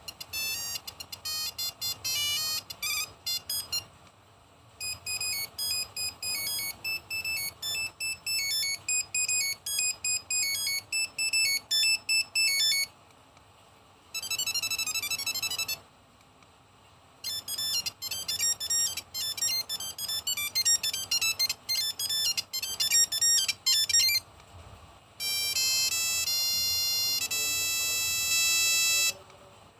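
Nokia 1100/1108 monophonic phone playing its built-in ringtones one after another: five short single-voice beeping tunes with brief pauses between them. One is a quick run of rapidly sliding notes, and the last holds long notes that step down and up in pitch.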